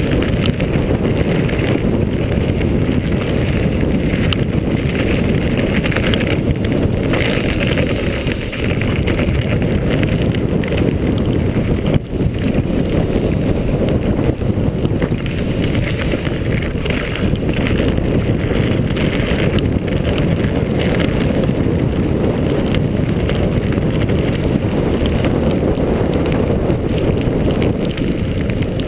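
Loud, steady wind buffeting the microphone of a mountain bike's handlebar camera during a fast downhill ride, mixed with the rumble of the tyres on a dirt and grass trail.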